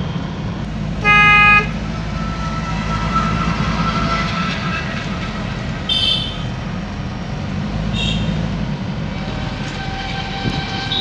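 Steady engine and road noise inside a moving Toyota microbus, with one loud vehicle-horn honk lasting about half a second about a second in. Two brief, higher-pitched toots follow around the middle.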